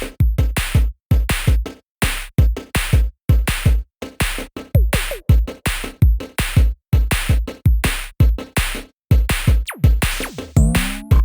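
Electronic music with a punchy drum-machine beat of deep kick thumps and sharp hits broken by short gaps, with sliding synth tones about halfway through and near the end.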